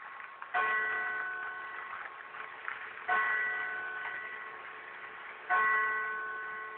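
Courthouse tower clock bell struck by the mechanical clock: three evenly spaced strokes about two and a half seconds apart, each on the same pitch and left to ring and fade.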